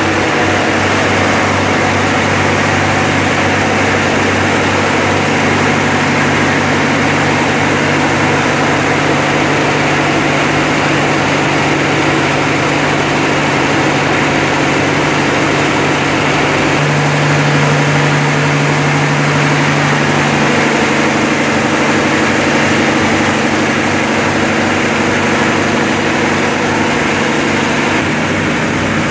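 Ship's marine diesel engines running steadily in a landing craft's engine room, started to hold the anchored vessel against strong wind and current. The low engine note shifts and grows briefly louder a little past halfway through.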